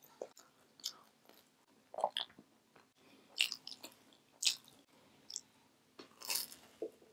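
Close-up eating sounds: a series of short, crisp crunching bites and chewing, spaced roughly a second apart, with a busier cluster near the end.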